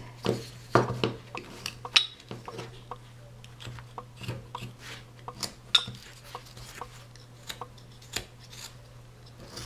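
Carving knife slicing into a small wooden figure: a series of short, irregular scraping cuts as chips come off the wood.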